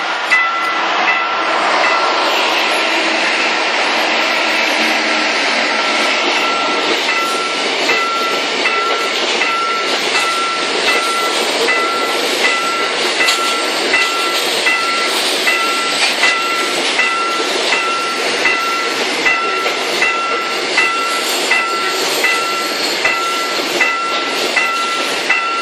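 Freight train passing close by: the locomotives go by in the first few seconds, then a long line of cement tank wagons rolls past with a steady rumble and a regular ringing clack from the wheels, a little more than once a second.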